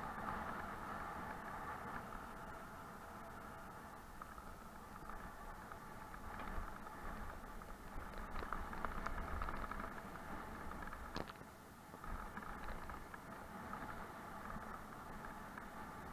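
Mountain bike rolling down a rough dirt and gravel singletrack, picked up by an SJCAM SJ4000 action camera riding along: a steady muffled rumble of tyres and rattling bike with wind over the camera. It gets louder through the stony middle section, and there is a sharp knock about eleven seconds in.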